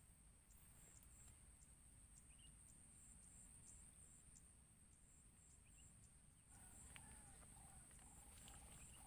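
Near silence, with faint insects buzzing steadily in the background and a light ticking about two to three times a second.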